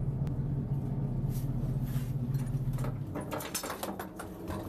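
A stock car's engine idling with a steady low drone. From about three seconds in, quick metallic clicks and rattles of seat-harness buckles and latches come in as the passenger is strapped in.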